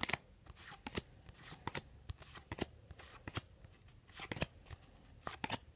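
2002 Fleer Triple Crown baseball cards being flipped through one at a time in the hands: a run of short, irregular flicks and slides of card stock.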